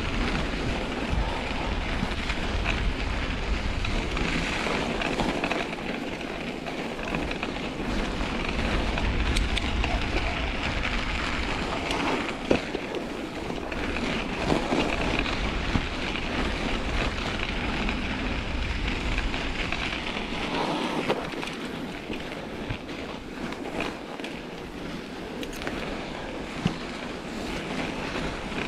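A mountain bike on Schwalbe Ice Spike studded tyres riding over a packed snow trail, with a steady rush of tyre and wind noise on the camera microphone. A few sharp knocks from the bike come over bumps.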